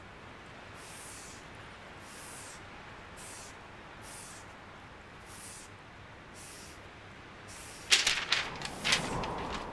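Faint hiss that swells softly about once a second, then a burst of four or five sharp, loud cracks near the end.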